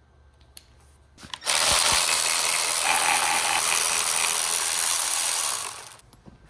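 A few clicks, then a loud steady whirring hiss from a tool at work on the engine's spark plugs for about four and a half seconds, stopping sharply near the end.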